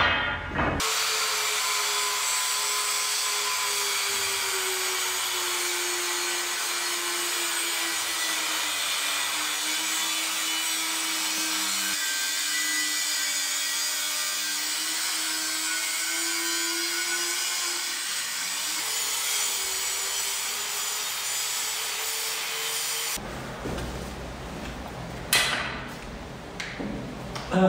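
Angle grinder cutting through old water pipe. Its motor runs steadily, the pitch sagging slowly under load and then recovering. It stops near the end and is followed by a few sharp knocks.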